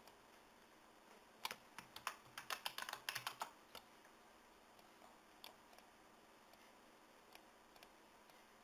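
Computer keyboard typing: a quick run of about a dozen keystrokes, typing in a folder name, followed by a few single mouse clicks.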